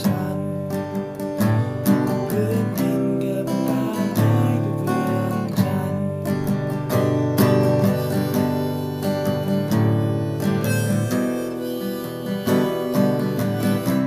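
Acoustic guitar playing an instrumental passage in a steady rhythm of picked and strummed chords, with harmonica notes from a neck rack.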